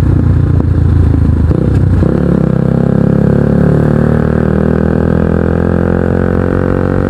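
Kawasaki NS150 motorcycle's single-cylinder engine running through an Akrapovic aftermarket exhaust while riding. About two seconds in the note changes, as at a gear change, and the engine pitch then climbs steadily as the bike accelerates.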